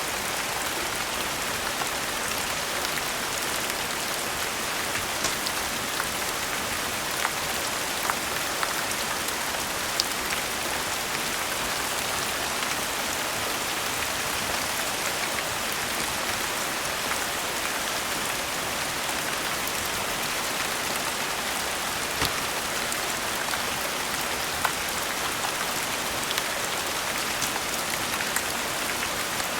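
Steady rain falling, with sharp crackles and pops from a wood fire now and then.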